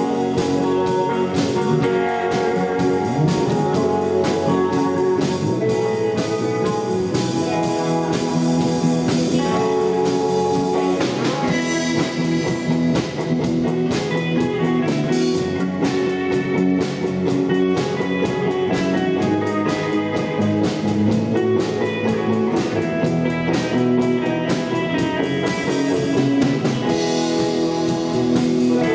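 Live instrumental rock band: electric guitars playing a melody over bass and a drum kit, with no singing.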